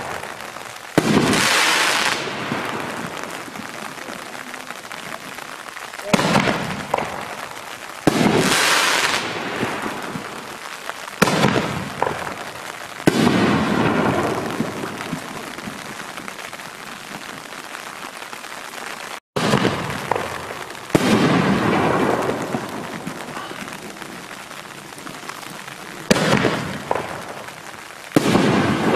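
5-inch canister firework shells fired one after another: a series of about nine sharp, loud bangs a few seconds apart, each trailing off slowly after the break.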